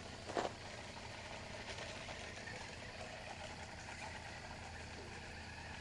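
RC car running, a steady low hum with a rushing noise over it, and a short knock about half a second in.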